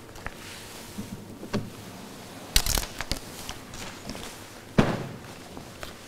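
A cloth cover pulled off a table, with fabric rustling among a few knocks and shuffling steps. The loudest sounds are a short, noisy swish about two and a half seconds in and a sharp knock near five seconds.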